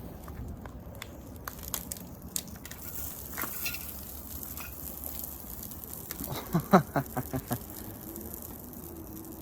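Crackling and crunching from a burnt-out, melted plastic coffee maker: scattered small clicks, with a cluster of louder crunches about six to seven and a half seconds in.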